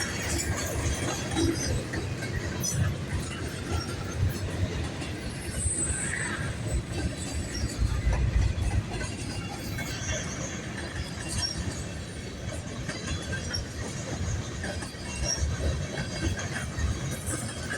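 Freight cars of a long freight train rolling past: a steady rumble of steel wheels on the rails, with scattered brief high-pitched wheel squeals.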